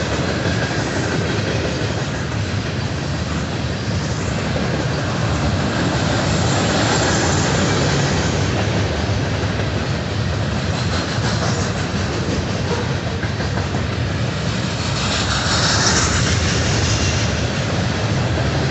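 A long freight train's cars rolling steadily past close by: a continuous rumble and clatter of steel wheels on the rails, with a brief rise in high-pitched rail noise about fifteen seconds in.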